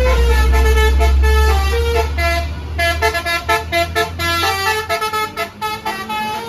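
Indonesian tour bus's 'basuri' multi-tone telolet horn playing a melody: held notes at first, then quick short notes from about three seconds in. A low rumble runs underneath and fades out about five seconds in.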